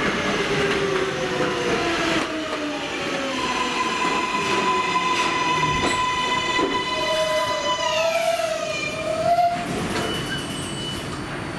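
Kawasaki R188 subway train pulling in and braking to a stop: its motor whine falls in pitch, holds a steady tone, then glides down together about eight seconds in as the train halts. A wavering squeal comes in around the stop.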